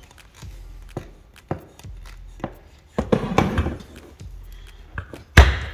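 Scattered clicks and knocks of factory fuel injectors being worked out of a Mustang 3.7 V6's fuel rail, the injectors stuck and resisting. A brief scuffling rattle comes about three seconds in, and the loudest knock comes near the end.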